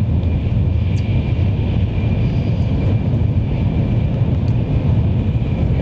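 Steady low rumble of a moving bullet train heard inside the passenger cabin, with a faint thin whine above it.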